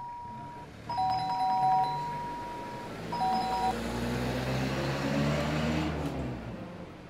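Electronic gate doorbell ringing as its button is pressed three times, the last press short: a steady high tone with a lower tone pulsing under it. A low rumble follows for about two seconds.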